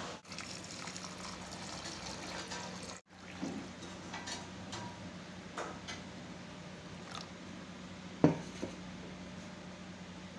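Water pouring into a steel pot of basmati rice and swirling over the grains as the rice is washed for soaking, with one sharp knock late on.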